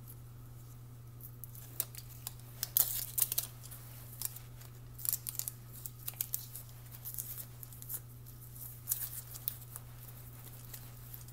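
Aluminium foil tape crinkling and crackling in the hands as it is peeled and pressed around a glove's fingertip, in irregular bursts of sharp crackles, loudest about three seconds in and again around five and nine seconds. A steady low hum runs underneath.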